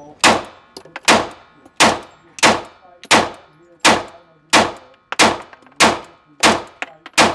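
Springfield Hellcat 9mm pistol fired in a steady string of about eleven shots, roughly one every two-thirds of a second, each sharp crack followed by a short ringing echo off the indoor range lane.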